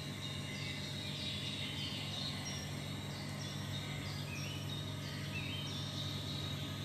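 Steady low hum of room background noise, with faint, short, high chirps that fall in pitch and repeat every half second or so.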